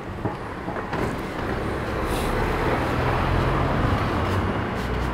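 Street traffic noise: a steady low hum of passing motor vehicles.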